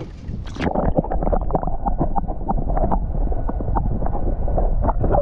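Muffled underwater sound as the camera's microphone sits below the lake surface: dull sloshing water with many scattered clicks and pops, after a short splash-like burst about half a second in.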